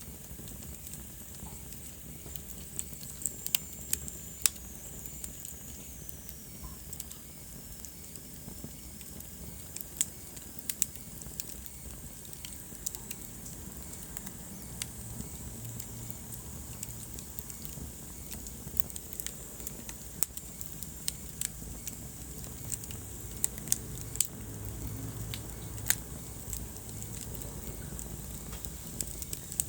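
Wood fire crackling in a fireplace: frequent sharp pops and snaps over a steady low rumble of the flames, with a faint high whistle sliding down in pitch a few seconds in.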